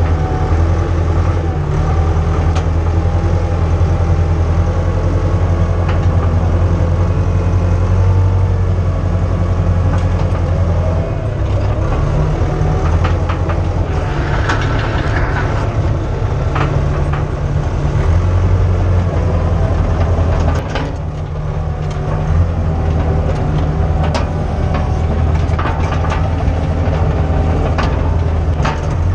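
Diesel engine of a Case 850B crawler dozer running, heard from the operator's seat. The engine note shifts a few times as the load changes, with scattered clanks and knocks.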